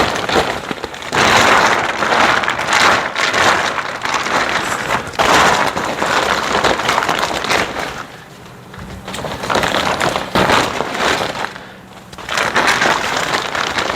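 Thick reinforced plastic greenhouse cover rustling and crinkling as it is pulled and shifted over the frame, easing off briefly twice, about eight and twelve seconds in.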